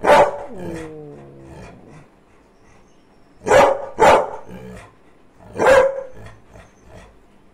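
A large Labrador-type dog barking on command, four times. The first bark at the start trails off into a falling, drawn-out tone, a quick pair follows about halfway through, and a last bark near the end ends in a short held note.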